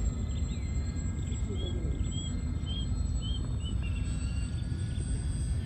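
Wind rumbling on the microphone, with a small bird calling a run of about five short, evenly spaced chirps a second and a half in, and a faint steady high whine of the B-24 model's electric motors in the distance.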